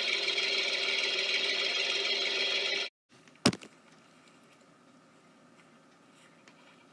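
A steady engine sound effect that cuts off abruptly about three seconds in, followed by a single sharp click.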